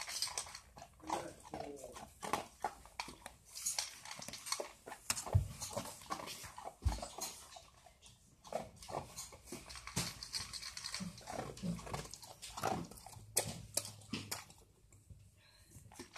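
Old English sheepdog eating from a stainless steel bowl: irregular chewing and clicks of its mouth against the metal, with two dull knocks about five and seven seconds in.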